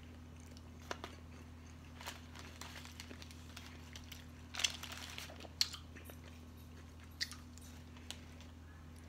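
Close-up mouth sounds of a person biting and chewing a sandwich: wet smacks and clicks. Paper wrapper crinkling is mixed in, with a few sharper crackles about halfway through, over a steady low hum.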